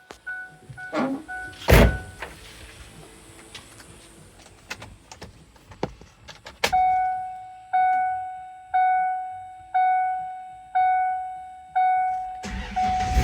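Inside a 1999 Ford Ranger's cab: a door-like thump, then the dashboard warning chime dinging about once a second, six times, each ding fading away. Near the end the 2.5-litre four-cylinder engine cranks and catches with a low rumble.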